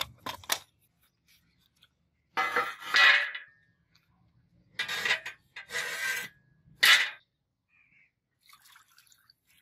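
A rusted steel blade scraping and knocking against a rusty steel channel tray on concrete as it is set down in it: a few quick clicks at first, then four loud, short scrapes in the middle. A faint trickle of liquid follows near the end.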